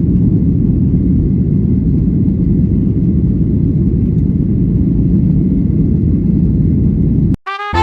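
Steady low rumble of airliner noise, loud and unchanging, which cuts off abruptly near the end.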